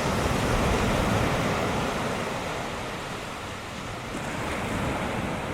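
Ocean surf: a steady rush of waves breaking and washing onto the beach, easing a little midway and swelling again near the end.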